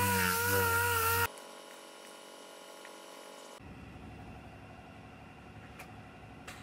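Air-powered sander whining with a wavering pitch as it dresses down a weld seam on an aluminum cab corner, cutting off sharply about a second in. After it, only faint shop noise with a few light clicks.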